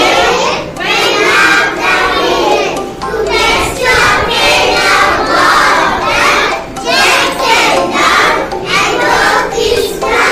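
A class of young children chanting an action rhyme together loudly in unison, in short rhythmic phrases.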